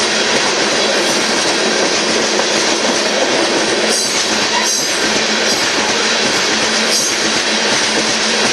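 Freight train of aggregate hopper cars rolling past: a steady rumble and clatter of steel wheels on the rails, with a few sharper clicks about four and seven seconds in.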